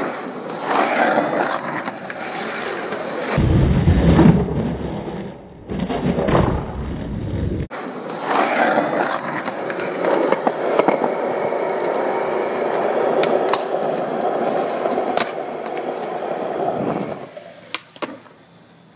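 Skateboard wheels rolling on concrete, with the sharp clacks of boards popping and landing. The rolling stops shortly before the end and a few sharp clacks follow.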